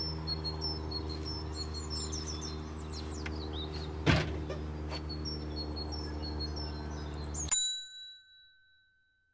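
Birds chirping over a steady low hum. About seven and a half seconds in, both cut off suddenly, and a single bell-like ding rings on and fades into silence.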